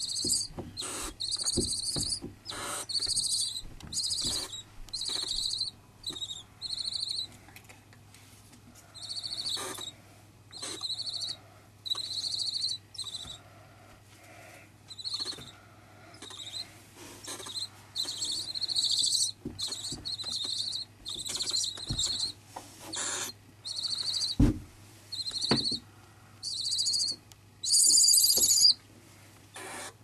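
Two-week-old barn owl chicks giving their hissing food-begging calls, one raspy hiss after another at about one a second with short gaps. The longest and loudest hiss comes near the end.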